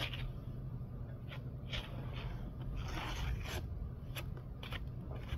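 Flat steel trowel scraping wet acrylic stucco finish across a sample board in a series of short strokes, with one longer scrape about three seconds in, laying on the first coat.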